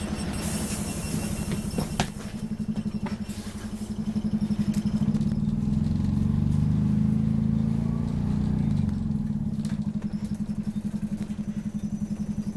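Optare Solo bus diesel engine running with a fast, even pulsing, growing louder for several seconds in the middle before settling back. There is a sharp click about two seconds in.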